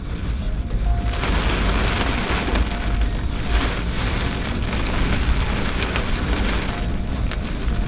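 Heavy rain hitting a moving vehicle, over a steady low road and engine rumble; the rain noise swells about a second in.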